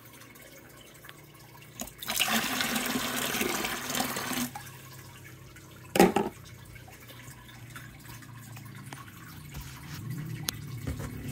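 Water splashing in a plastic bucket for about two and a half seconds, then a single short knock a moment later.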